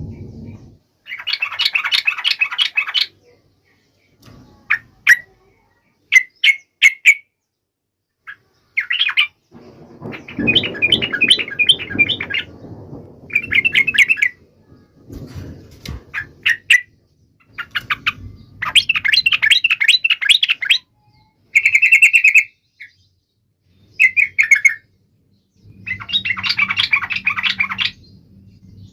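Sooty-headed bulbul (trucuk) singing vigorously: repeated fast chattering phrases of a second or two each, broken by short pauses and a few single sharp notes.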